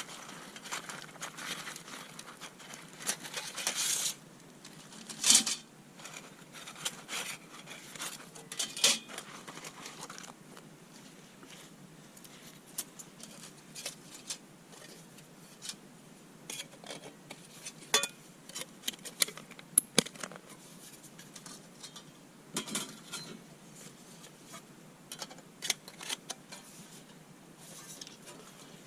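Thin titanium panels of a folding Tomshoo twig stove clinking and scraping as they are laid out and slotted together by hand, with rustling of the stove's fabric pouch in the first few seconds.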